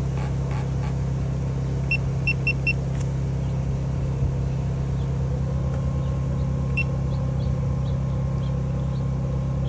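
A steady low engine hum. Short high electronic beeps sound over it: four quick ones about two seconds in and a single one near seven seconds.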